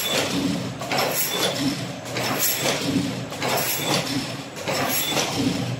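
Reverse-twist hexagonal wire mesh netting machine running, a rhythmic metal clatter that swells and eases in a cycle of a little over a second.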